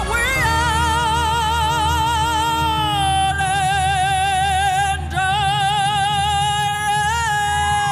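A solo singer holds a long high note with wide vibrato over a backing track with a steady beat. About three seconds in the voice steps down to a second long held note, and it slides down off the note near the end.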